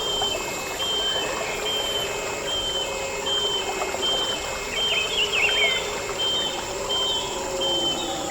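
Rainforest ambience: running water with a bird repeating short, high whistled notes, about two a second, and a few quick chirps from another bird about halfway through. A steady high insect drone sits underneath.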